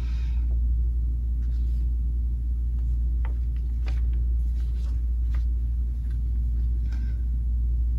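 A steady low hum with a few faint clicks and taps over it, scattered through the pause.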